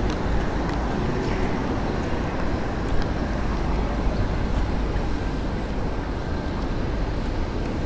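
Steady city street noise: a low rumble of traffic, with a single brief knock about three seconds in.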